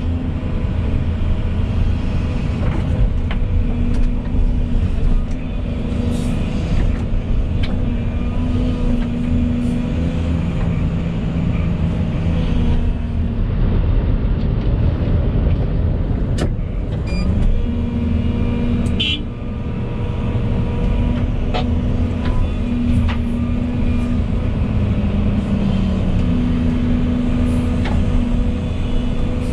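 Volvo EC220E excavator's diesel engine running steadily while digging, with a hydraulic tone that shifts in pitch as the arm and bucket move, and occasional clicks and knocks.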